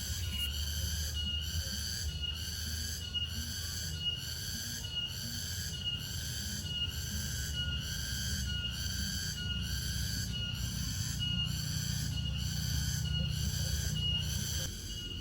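Cricket chirping in a steady, regular rhythm of about two chirps a second, over a low rumble that drops off near the end.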